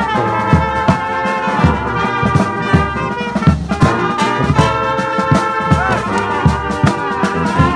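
Brass band playing a tune, trumpets and trombones carrying the melody over a steady beat.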